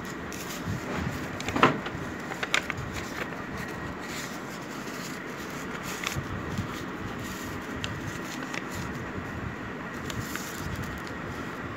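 Sheet of origami paper rustling and being creased and pressed flat by hand, with a few short crackles, the loudest about one and a half seconds in, over a steady background noise.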